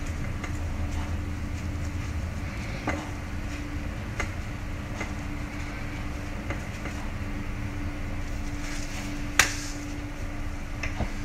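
Soft taps and clicks as a folded kitchen towel dabs and presses a rumali roti cooking on an upturned kadhai, over a steady low hum; one sharper click about nine seconds in.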